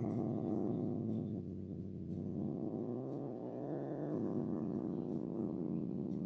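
A domestic cat's long, low, rough vocal sound held without a break for about seven seconds, starting and stopping abruptly.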